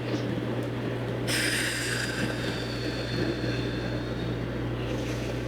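A person's long, slow breath as a hiss, starting about a second in and lasting almost four seconds, over a steady low hum of room noise.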